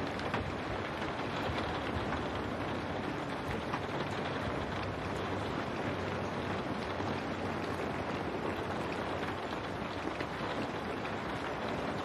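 Steady rain on window glass: an even hiss with scattered small ticks of drops striking.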